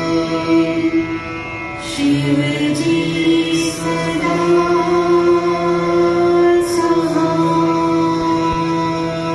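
Devotional music: long held notes over a steady drone, the melody stepping to new notes about two seconds in and again near seven seconds.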